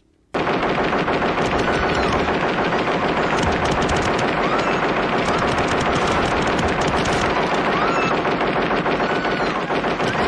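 Film sound effect of the ED-209 robot's arm-mounted machine guns firing one long, continuous burst, starting about a third of a second in.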